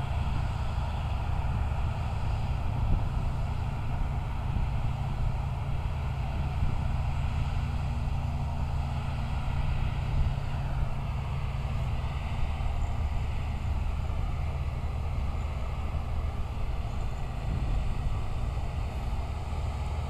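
Large diesel engine of harvest machinery running steadily with a deep hum; a faint higher whine dips in pitch about halfway through.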